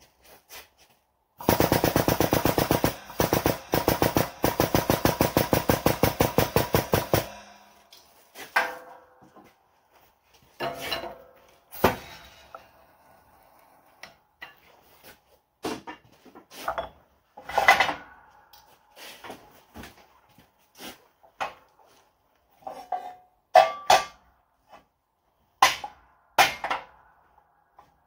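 Air-over-hydraulic shop press pump running in a rapid, even chugging rattle for about six seconds as the ram presses a steel bracket, then stopping. After it come scattered separate knocks and clanks of metal.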